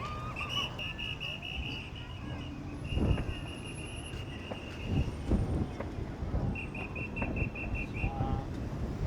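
A whistle blown in three trilled blasts over steady outdoor crowd noise, with a few dull thumps, the loudest about 3 and 5 seconds in.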